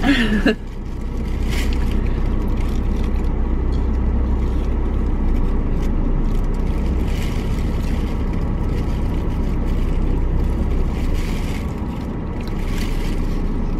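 Steady low rumble of a car heard from inside the cabin, with a few faint brief rustles.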